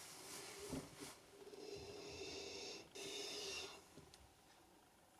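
A person breathing slowly and deeply in a small room, two long drawn breaths in the middle, as during a propolis steam inhalation over hot water.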